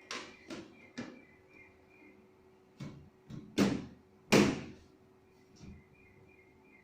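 Door or panel of a PC-case grow cabinet being handled and shut: a series of knocks and clicks, the two loudest about three and a half and four and a half seconds in. Birds chirp faintly over a steady low hum.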